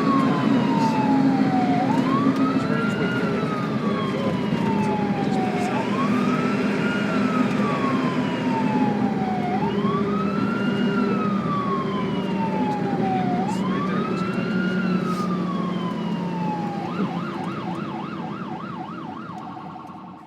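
Ambulance siren wailing: each cycle rises quickly and falls slowly, about every four seconds. Near the end it switches to a fast yelp of about four warbles a second as the sound fades out. A low steady hum runs beneath it.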